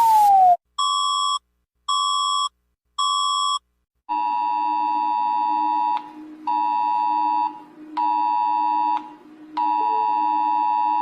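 Emergency Alert System-style alert audio. After the last of a falling siren tone at the very start come three short, identical electronic beeps about a second apart. Then a two-tone attention signal sounds in four long stretches broken by short gaps, with a low hum beneath it.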